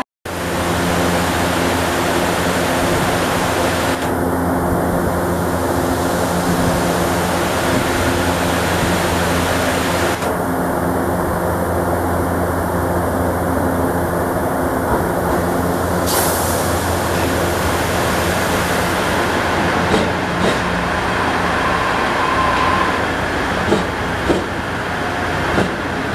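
Trains at a station platform: a steady low hum from a standing train, then the HB-E300 series hybrid diesel railcar arriving alongside the platform. A brief hiss comes about two-thirds in, and wheel clicks and knocks sound near the end as the arriving train passes close by.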